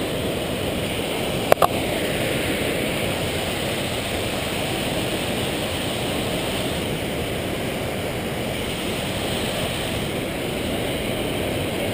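Steady rushing noise of a flowing creek. About one and a half seconds in come two sharp clicks close together, from the climbing gear.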